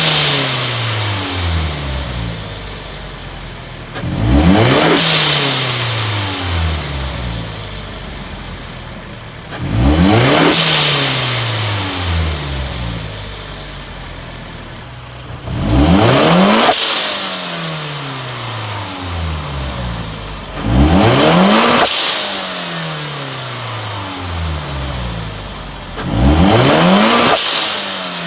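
Turbocharged Scion FR-S flat-four engine blipped hard about every five seconds, six times. Each rev climbs quickly and then winds back down toward idle over a few seconds, with a brief hiss at the top of each rev.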